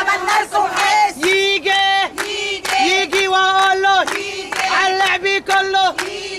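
Women ululating together (zaghareet), a high held trill on one steady pitch, breaking off and starting again every second or so, with hand clapping.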